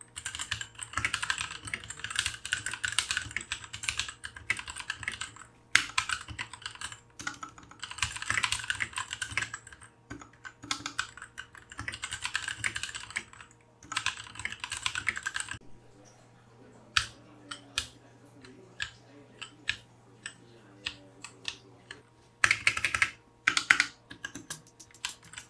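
Royal Kludge RK68 mechanical keyboard with lubed brown switches being typed on fast: dense runs of keystroke clacks, thinning to scattered single keystrokes about two thirds of the way through, then a fast run again near the end.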